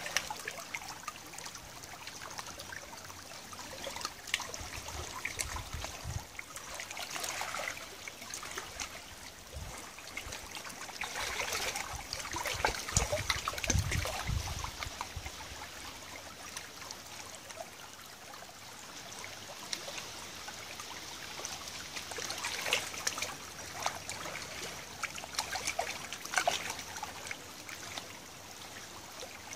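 Tidal river water trickling and lapping among pebbles and stones at the water's edge, a continuous splashy trickle with many small ticks, swelling louder around the middle.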